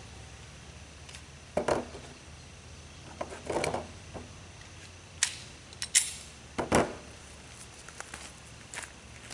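Handling noise from a Glock 43 pistol: a handful of sharp clacks and rattles as it is handled and set down on a plastic barrel, then lighter ticks near the end as footsteps cross wood chips. No shots are fired.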